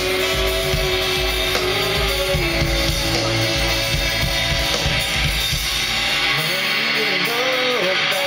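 Live rock band playing, electric guitar to the fore over held tones. The deep bass drops out about six seconds in.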